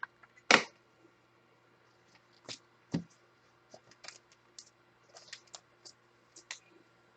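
Trading cards handled and set down on a table: irregular light clicks and scrapes, the loudest a short scrape about half a second in and a knock near three seconds.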